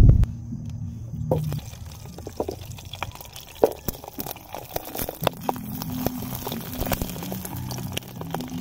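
Sausages simmering in a little water in a camp pan over a wood fire, bubbling and spitting with many small sharp pops and crackles from about a second in. Quiet music plays underneath.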